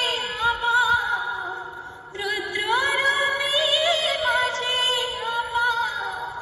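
Female vocal from a DJ sound-test track, singing with wavering, gliding pitch over music. The singing breaks off briefly about two seconds in, then carries on.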